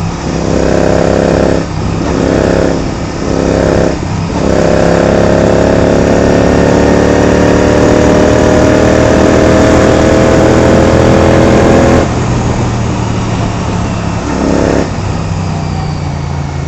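Royal Enfield Continental GT 650's parallel-twin engine at hard throttle, shifting up with brief breaks in the first few seconds, then a long pull with the pitch rising steadily for about seven seconds. About twelve seconds in, the throttle shuts off suddenly, followed by a short blip and lower, steady running.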